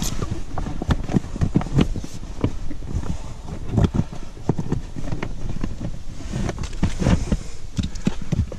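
Irregular knocks, clicks and thumps as the floor panels of an inflatable PVC boat are handled and pushed into place. A steady low rumble of wind on the microphone runs underneath.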